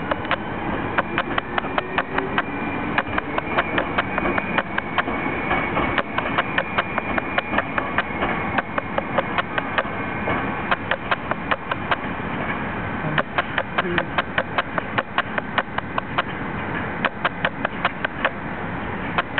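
Electric commuter train, an Ohmi Railway 800 series, pulling away from a station, with a faint low motor whine rising in pitch over the first few seconds as it gains speed. A sharp, steady clicking, about four clicks a second, runs over it throughout.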